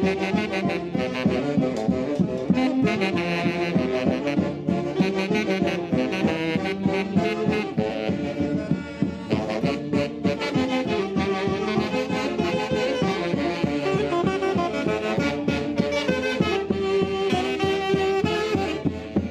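Saxophone-led Andean típica orchestra playing a Santiago fiesta tune, with a steady beat.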